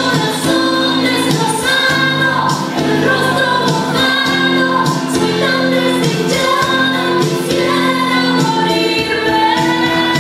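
Loud music with a woman singing a melody in long held notes over a band accompaniment with a steady beat.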